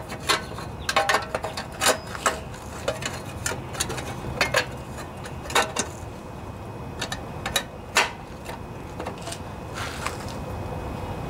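Scattered light clicks and knocks of hands handling the top of a Briggs & Stratton lawnmower engine, around its flywheel and the shroud going back over it, with a steady low hum underneath.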